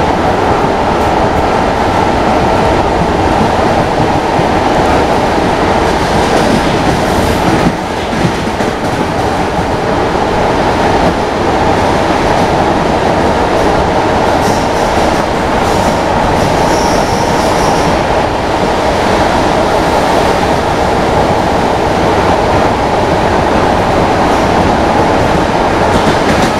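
Steady running noise of an ER2T electric multiple unit heard inside its passenger coach: a loud, even rumble of the train under way, with a brief dip about a third of the way through.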